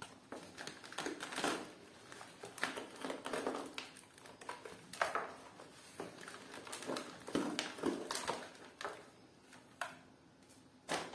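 Handling noise of unpotting a potted alocasia: irregular scratchy rustles and light clicks as the plastic nursery pot is worked and the root ball, with its soil, is pulled out.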